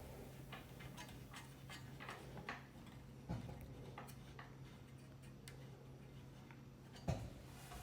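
Faint scattered clicks and light ticks at irregular intervals, with one sharper knock near the end, over a low steady hum.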